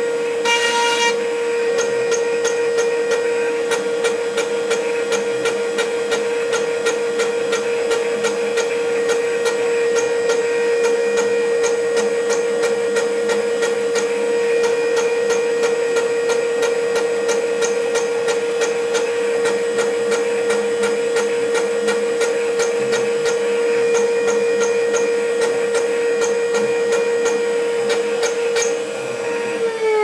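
Roland desktop CNC mill's spindle running at speed with a steady high whine while its end mill cuts a copper-clad PCB, with many fine irregular ticks from the cutting and axis moves. Near the end the whine's pitch starts to fall.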